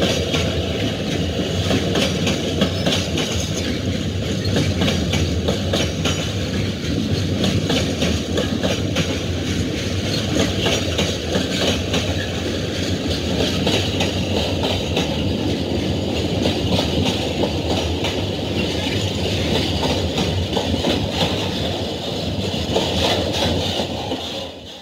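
Model Class 66 Freightliner locomotive hauling five Tiphook wagons past on a model railway, a steady running hum with rapid clicking of wheels over the track. The sound cuts off abruptly near the end.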